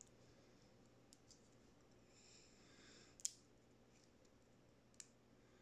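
Hobby sprue nippers snipping a tiny model part free of its sprue: a few faint clicks, the sharpest a little over three seconds in and another about five seconds in, with near silence between.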